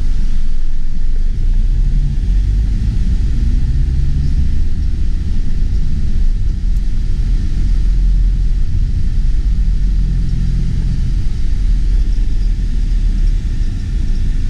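Car driving slowly through town, heard from inside the cabin: a steady, loud low rumble of engine and road noise.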